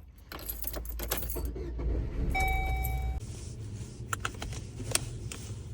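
Car keys jangling with a run of small clicks and knocks, under a low rumble. About two and a half seconds in comes a short electronic chime lasting under a second.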